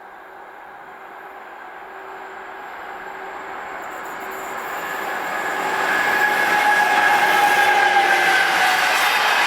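A train approaching on the line. Its running noise grows steadily louder over about six seconds, then stays loud as it passes, with a few steady whining tones over the noise.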